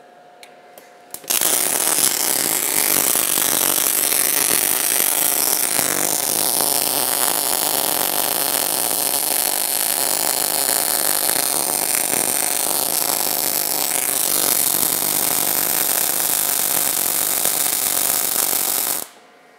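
MIG welding arc run along a plate by a motorized travel carriage with the torch at a drag angle: after a few faint clicks, the arc strikes about a second in, burns with a steady crackling hiss, and cuts off suddenly shortly before the end.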